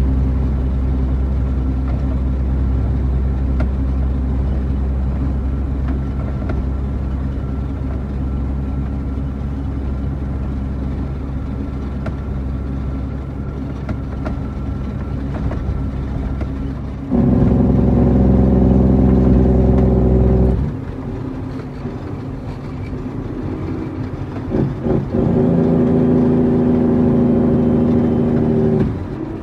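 Heavy diesel truck engine running steadily, with two louder spells: one about two-thirds of the way in lasting some three seconds, and one near the end that cuts off suddenly.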